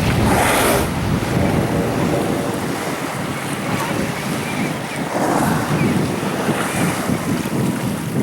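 Wind buffeting the microphone over ocean waves washing around a kayak, with louder rushes of water about half a second in and again about five seconds in.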